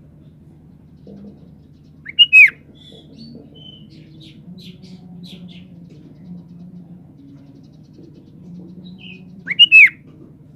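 Sooty-headed bulbul calling: two loud, short whistled phrases about seven seconds apart, the first followed by a run of softer, higher chirps, over a low steady hum.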